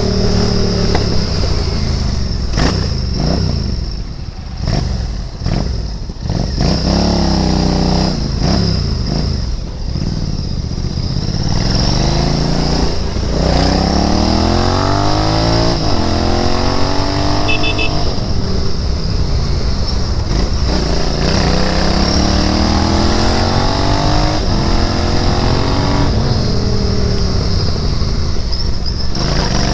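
Royal Enfield Interceptor 650's 648 cc parallel-twin engine under way, the revs rising and dropping back several times as the rider accelerates and shifts gears.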